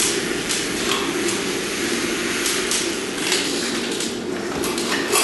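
Automatic drywall taper (bazooka) running tape and joint compound up an inside corner: a steady mechanical noise with scattered clicks and knocks.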